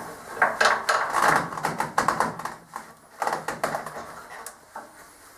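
Hand crank of a motorcycle lift's front-wheel chock being turned to clamp the wheel, with irregular clusters of metallic clicks and rattles.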